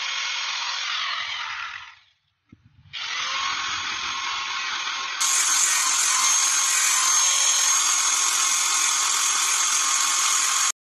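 A power tool running steadily. It stops briefly about two seconds in, starts again, and gets louder and brighter about five seconds in.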